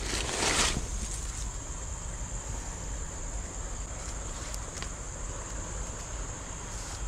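Insects buzzing steadily at a high pitch. About the first second is covered by a burst of rustling as a fabric bag is handled.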